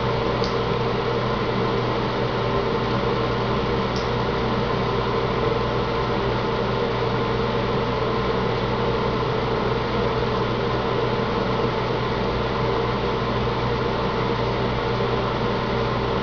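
Steady hum and hiss of a small running motor or ventilation, with a thin stream of tap water running from a bathroom faucet into the sink as a cat drinks from it. Two faint ticks, about half a second in and again about four seconds in.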